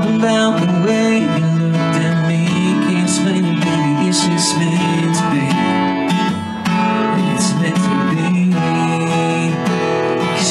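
A country song played live: an acoustic guitar strummed steadily, with a man singing over it into a microphone.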